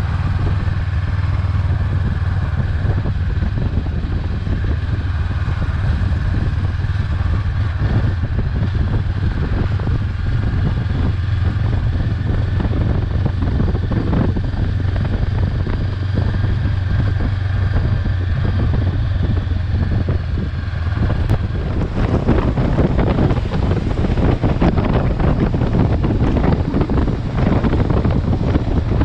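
Honda CB500X parallel-twin engine running steadily while riding, with wind rushing over the microphone. The wind noise grows broader and louder about three-quarters of the way through.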